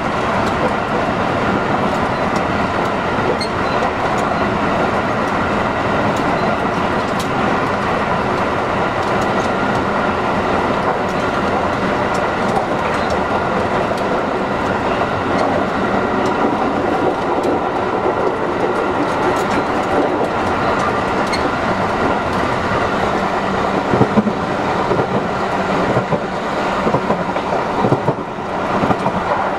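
JR West 223 series electric multiple unit motor car (KuMoHa 223) running along the line at steady speed: wheel-and-rail noise with an even motor hum that neither rises nor falls. A couple of louder knocks come about three-quarters of the way through and near the end.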